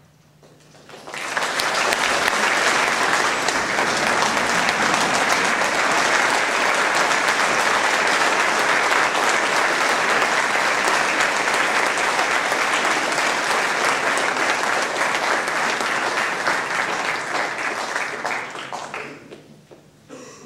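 Audience applauding: a large crowd claps steadily, starting about a second in and dying away near the end.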